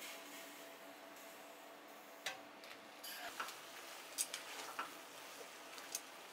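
Metal tongs tossing spaghetti in cream sauce in a frying pan, giving a handful of sharp clicks against the pan over a faint steady hiss of the simmering sauce.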